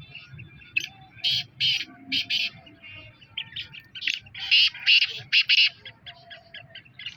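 Caged partridges calling, a series of short harsh squawking calls in quick clusters, loudest about two-thirds of the way through.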